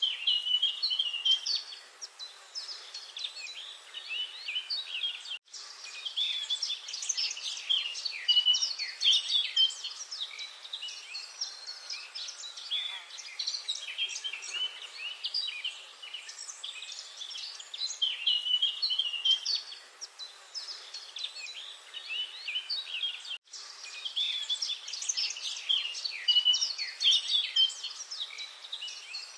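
Many small birds chirping together in a dense, overlapping chorus of short high calls. The sound drops out briefly twice, about five seconds in and again near the end.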